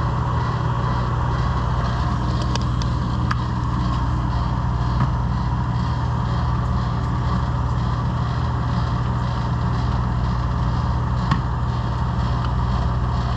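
Commercial refrigerator's compressor and condenser fan running steadily with a constant low hum, with a few light clicks from handling tools and fittings.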